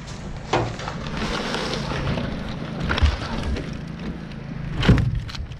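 Pine logs on a loaded trailer being shifted by hand: wood knocking and scraping against wood, with three sharp knocks, the loudest near the end.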